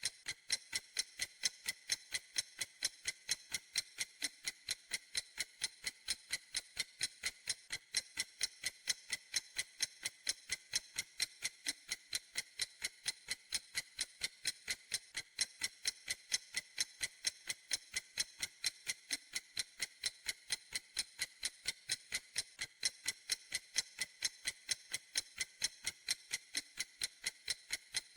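Clock ticking steadily, sharp, bright, evenly spaced ticks at about three a second.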